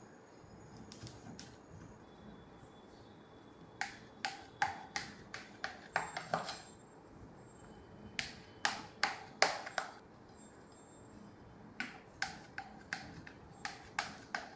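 Kitchen knife cutting through steamed dhokla and ticking against the bottom and rim of an aluminium pan, in runs of quick sharp clicks with short pauses between.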